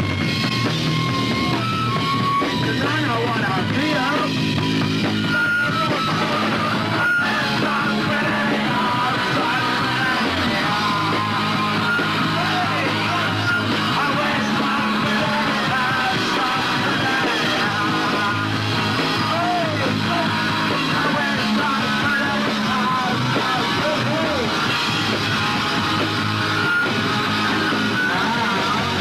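Punk rock song played by a band, with guitar and a yelled vocal line over a steady loud backing.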